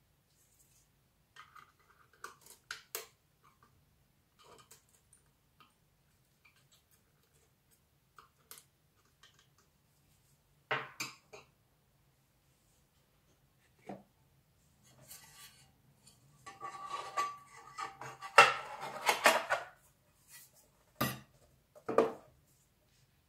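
Small hand tools and metal parts being handled on a table: scattered light clicks and taps as screwdrivers are set down, then a longer stretch of metallic scraping and clinking as the metal router enclosure is fitted together, ending in two sharp knocks. A faint steady low hum runs underneath.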